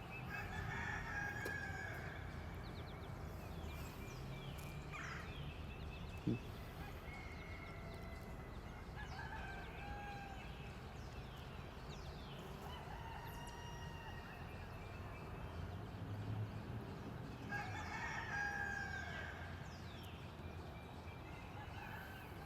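Rooster crowing, strongest near the start and again about eighteen seconds in, with small birds chirping. A single sharp click sounds about six seconds in.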